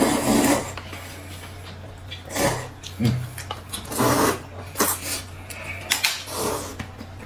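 Noodles being slurped with loud sucking rushes, several of them a second or two apart, over a low steady hum.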